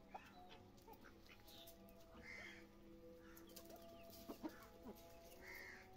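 Faint clucking and drawn-out calls of domestic chickens, hens and roosters, as they feed.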